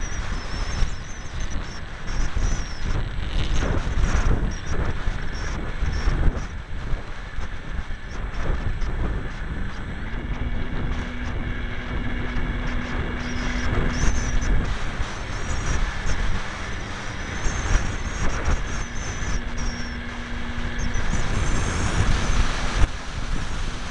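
Wind rushing and buffeting over the onboard camera's microphone on a ParkZone T-28 Trojan electric foam RC plane in flight, with the whine of its electric motor and propeller wavering in pitch. A steady low hum comes in twice, for a few seconds each time.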